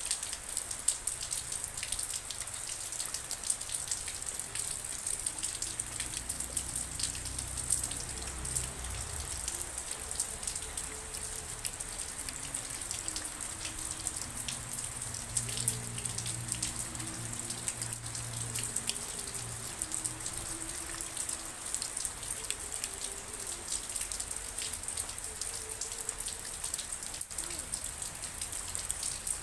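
Rain falling, many separate drops ticking close by over a steady hiss of rain. A faint low hum lies underneath through the middle.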